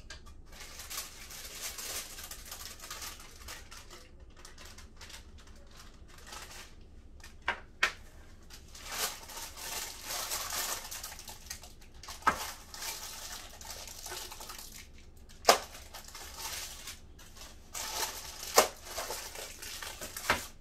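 Parchment paper rustling and crinkling as the set fudge is handled, with several sharp knocks and clicks from utensils on the pan or dish.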